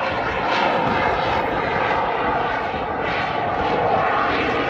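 Small aerobatic propeller plane's engine running steadily as it climbs vertically, heard from the ground.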